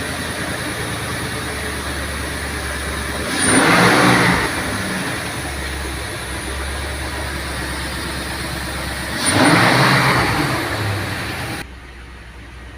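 Nissan Patrol Y62's 5.6-litre V8 petrol engine idling and revved twice, each rev rising and falling back to idle. It takes the revs cleanly now that the cracked plastic intake manifold, which had let unmetered air in and caused misfiring and no revs, has been replaced.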